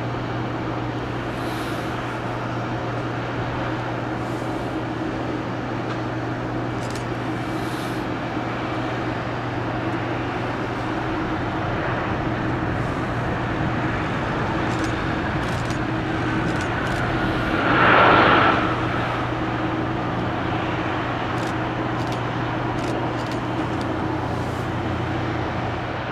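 Aircraft engines running with a steady hum. About two-thirds through, a brief louder rush comes with a falling whine.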